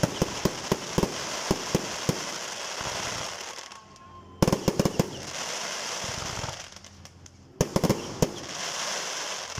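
Fireworks display: aerial shells bursting in three clusters of sharp bangs, at the start, about four and a half seconds in and about seven and a half seconds in, with crackling from the burning stars in between.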